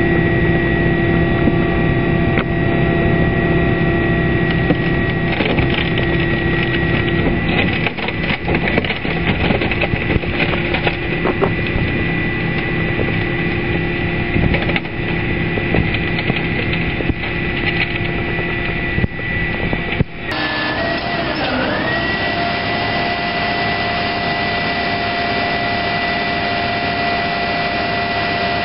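Leach 2RII rear-loader garbage truck running its packer cycle: the engine held at raised revs with a steady hydraulic whine while the blade crushes upholstered furniture, with many sharp cracks and snaps from the frame breaking. About two-thirds of the way through the sound changes abruptly and the whine dips briefly in pitch, then steadies.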